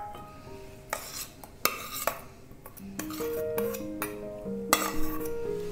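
A steel spoon scraping grated carrot out of one steel bowl into another, a few short scrapes and light metal-on-metal clinks. Soft background music of held notes plays underneath, filling in from about halfway through.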